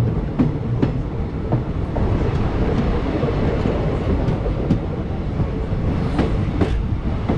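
Passenger train running along the track, heard from aboard a coach: a steady low rumble of the wheels and carriage, with the sharp clack of wheels over rail joints every second or so.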